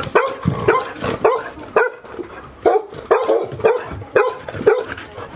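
A dog barking over and over, about two short, sharp barks a second.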